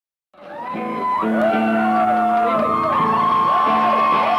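Live rock band music fading in, led by electric guitar: a held low note rings on while higher tones glide up and down over it.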